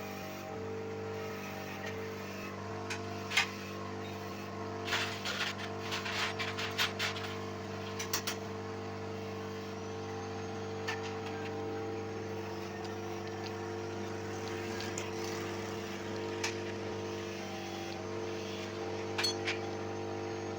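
A steady machine hum with several fixed pitches, with short metallic clicks and clinks of tools on metal, clustered a few seconds in and again near the end.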